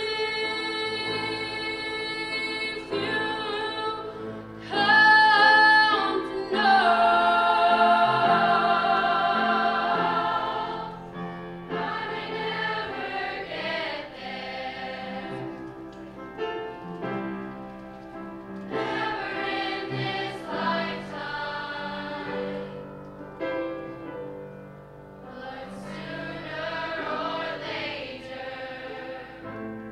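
School choir singing, with one voice standing out over the microphone. The singing is loudest in long held notes between about five and ten seconds in.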